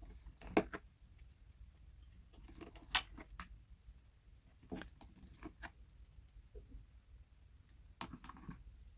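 Slime being handled and pressed, making irregular sticky clicks and crackles, the strongest about half a second in and again around three, five and eight seconds.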